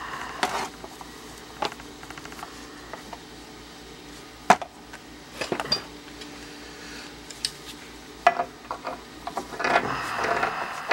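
Scattered metallic clinks and knocks of hand tools and brass plumbing fittings being handled, with one sharp clank about four and a half seconds in and a busier patch of knocks and rustling near the end.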